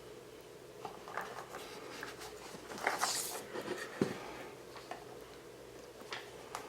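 Small clicks and taps of nuts and screws being handled while fitting a flight controller to a drone frame, with a brief hiss about three seconds in and a sharper knock about a second later.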